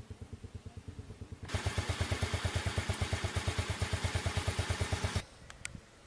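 An engine running with a steady, rapid pulse of about ten beats a second. About a second and a half in it suddenly becomes much louder, then cuts off abruptly near the end.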